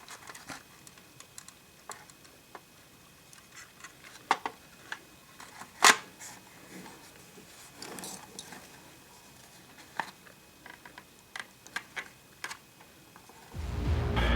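Scattered light clicks and knocks of hands handling and opening a vintage portable radio's casing after its screws are out, with one sharper knock about six seconds in. Music starts loudly near the end.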